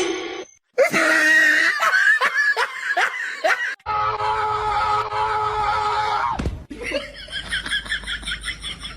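Laughter in short pitched pulses, cut off and restarting twice, with a steady held tone in the middle stretch.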